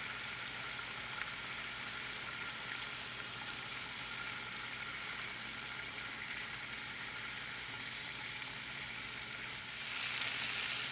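Chicken shashlik skewers frying in cooking oil over low heat, a steady sizzle that grows louder near the end.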